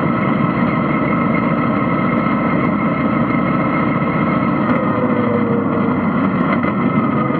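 Vintage dirt-track race car engine running hard and steady on track, heard from inside the open cockpit with wind and dirt noise mixed in.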